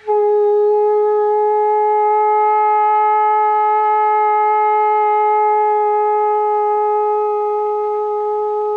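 A conch shell (shankha) blown in one long held note, growing slightly softer near the end.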